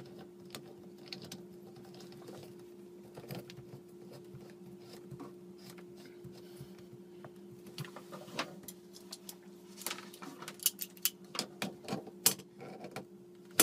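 Scattered small clicks and taps of hands handling a water supply hose and threading its fitting back onto the cold-water valve under a sink, growing busier in the last few seconds, over a steady low hum.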